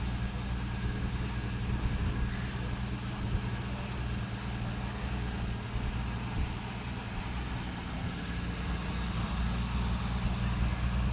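A car engine idling steadily, a low, even rumble.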